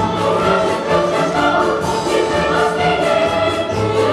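Children's choir singing with an orchestra, over a steady beat.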